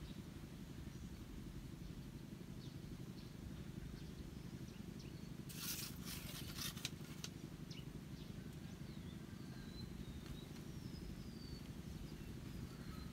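Rural outdoor ambience: a steady low rumble, with a short run of sharp clicks about six seconds in and faint bird chirps in the second half.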